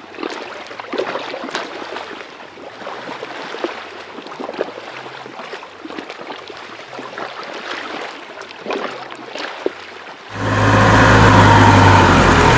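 Faint rustling with scattered small clicks, then about ten seconds in a sudden loud, steady rushing of water with a low hum, as heard by a camera held under the sea.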